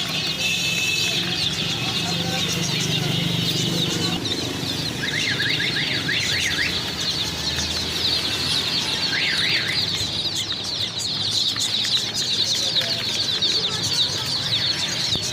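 Many baby chicks peeping together: a dense, continuous chorus of short, high, falling chirps.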